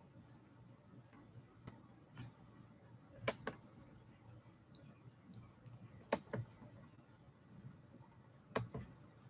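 A few sharp, isolated clicks over faint room noise, the loudest ones about three seconds in, around six seconds in, and near the end.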